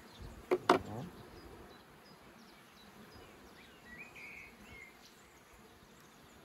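Two sharp knocks close together about half a second in: the hive tool and the wooden frames of an open Langstroth hive being handled. After them, faint honeybee buzzing with a few short high chirps around four seconds in.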